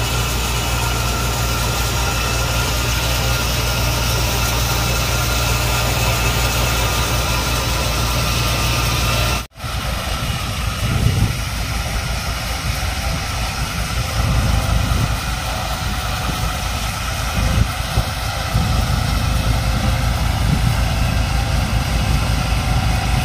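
Tractor-driven mung bean thresher running steadily, a continuous machine drone. The sound cuts out for a moment about nine and a half seconds in, then comes back rougher and more uneven as plant bundles are fed into the machine.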